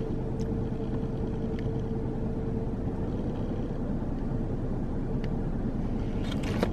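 Steady low rumbling noise, with a faint steady hum that fades out about halfway through and a few light ticks.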